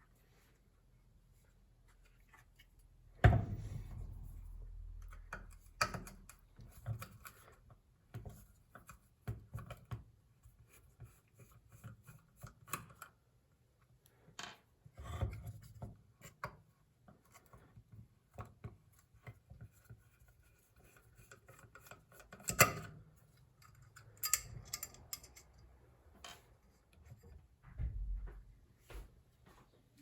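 Handling noises from working on small parts by hand: scattered clicks, scrapes and light knocks, with a louder knock about three seconds in and another near twenty-three seconds.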